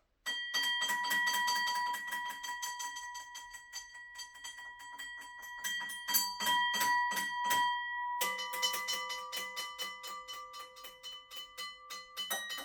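Bell-like musical tones: a held, ringing pitch with rapid, even pulsing, moving to a lower pitch about eight seconds in.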